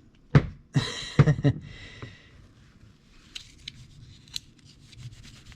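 Spray bottle of polish squirting onto a plastic slot car body, a sharp click and then a hissing spray with clicks in the first couple of seconds, followed by faint ticks and handling noise.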